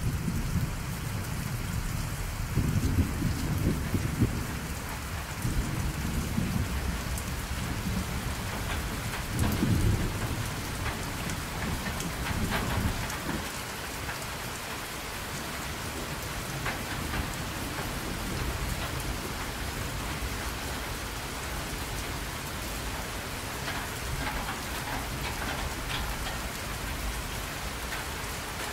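Steady rain, with low rolling rumbles of thunder through the first half that die away about halfway through.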